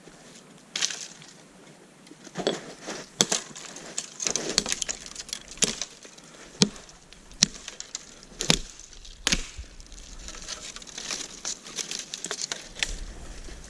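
Twigs and small dry sticks snapping and crunching as they are broken and handled: sharp irregular cracks about once a second over lighter rustling.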